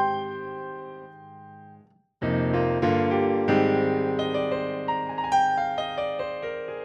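Workstation synthesizer playing a piano patch: held chords ring and fade, the sound breaks off into a moment of silence about two seconds in, then a new phrase of chords with a melody on top starts.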